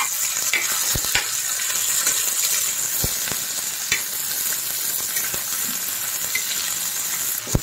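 Diced onion and potato sizzling in hot oil on a tawa, stirred and scraped with a metal spatula, with several sharp clicks as the spatula strikes the pan.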